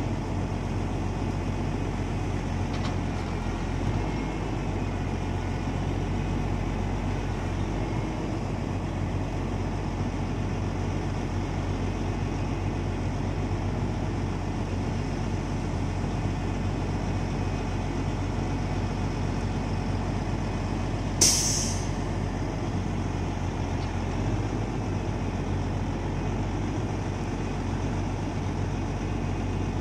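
Log truck's diesel engine running steadily while its self-loader crane lifts logs. A short, loud hiss comes about two-thirds of the way through.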